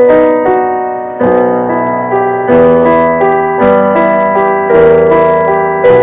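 Background piano music: single notes and chords struck at an unhurried pace, each ringing and fading before the next.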